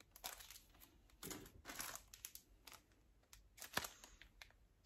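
Faint crinkling and rustling of a plastic fly packet being handled, with a few soft clicks scattered through.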